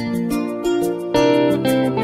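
Instrumental music: guitar over sustained keyboard-style chords, with a steady beat of light high ticks at about four a second. It is the instrumental intro of a choir song, before any singing.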